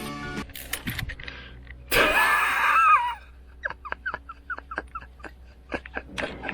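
A man's wordless exclamation, a drawn-out laugh-like groan about two seconds in, followed by a run of light, quick clicks, about four a second.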